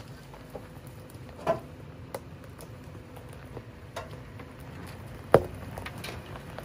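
Brush and twigs cracking and snapping as a Toyota 4Runner creeps through roadside growth at a crawl, with a low steady rumble beneath. There are a few separate sharp cracks, the loudest about five seconds in.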